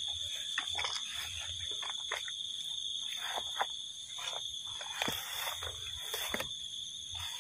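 Steady high-pitched chorus of insects, crickets and the like, with scattered soft clicks and rustles of handling.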